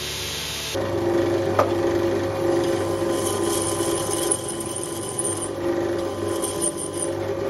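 Drill press running with its bit cutting into a leaf-spring steel knife blank: a steady motor hum with a scraping cut that rises and falls. It starts just under a second in.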